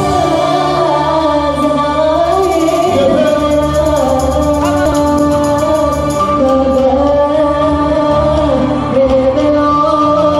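Music: a song playing, with a melody line that wavers over sustained backing notes.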